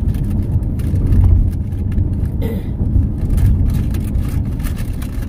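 A car being driven, its road and engine noise a steady low rumble heard from inside the cabin.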